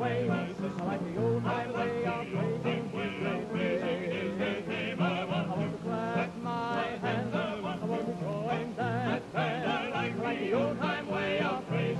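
Gospel vocal group singing in harmony, several voices with wavering vibrato over steady low notes, on a 1965 recording with little treble.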